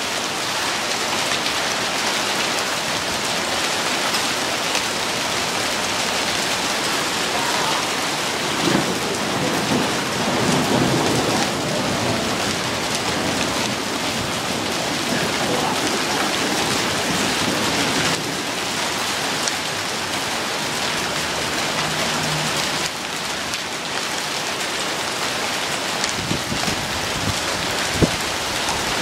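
Heavy rain pouring down steadily, with a low rumble of thunder swelling from about nine seconds in for a few seconds. A few sharp taps near the end.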